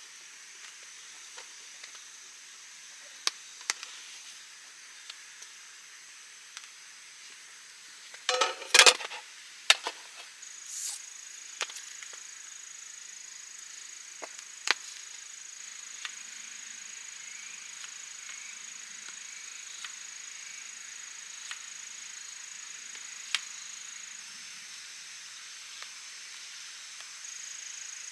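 Sparse small clicks and knocks of handling, with a brief cluster of sharp clattering about eight to nine seconds in. From about ten seconds in, a steady high-pitched insect drone runs on.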